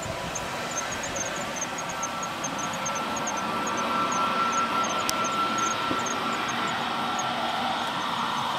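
Airbus A321neo's Pratt & Whitney PW1100G geared turbofan engines at taxi power: a steady jet whine with a high tone that grows louder a few seconds in as the airliner turns toward the listener.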